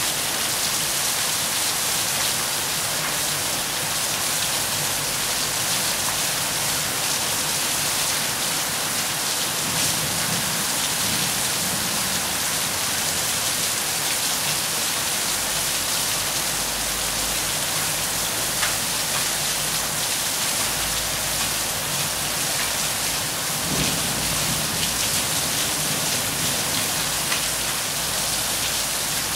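Steady rain falling, an even hiss of many drops with no letup, and faint low rumbles about ten seconds in and again near the end.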